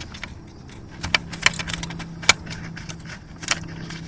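Crinkling and clicking of a cut plastic 2-liter bottle being handled and pressed into place by fingers, in many short sharp clicks with a louder one about two seconds in. A low steady hum comes in about a second in.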